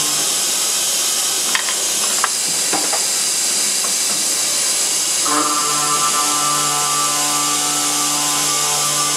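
Cold saw with a 285 mm 72-tooth blade turning slowly and cutting through a 34 mm SNCM220 nickel-molybdenum steel bar: a steady hiss of the cut, with a few light clicks in the first three seconds. A steady whine comes in about five seconds in.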